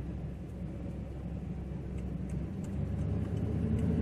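Chevrolet Silverado pickup driving slowly on pavement, heard from inside the cab as a low engine hum with tyre noise. About halfway through, the engine note steps up and grows louder as the truck picks up speed.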